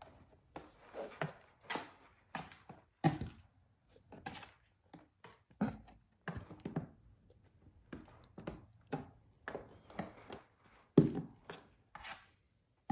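Young kittens play-fighting at a carpet-covered cat cube: irregular soft thumps and scuffs as paws bat and small bodies knock against it, with a louder thump about three seconds in and again near the end.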